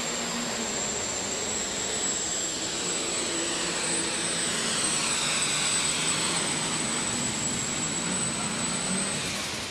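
Turbocharged diesel super stock pulling tractor running flat out under load as it drags the weight sled, with a high, steady turbo whistle over the engine noise. The whistle cuts off near the end as the engine comes off full power.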